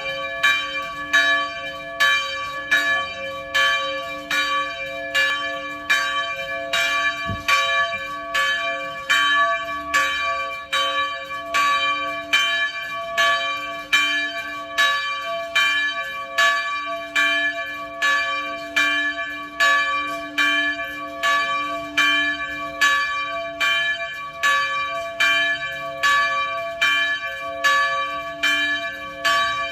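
A church bell being rung in a steady, even rhythm, each stroke of the clapper striking the bell. Its tone rings on between strokes, so the strokes overlap into a continuous peal.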